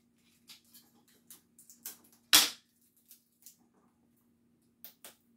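Quiet handling noises, light clicks and rustles, as sticky tape is worked with the fingers and pressed onto a basket of plastic grilling utensils, with one louder, brief noise about two and a half seconds in.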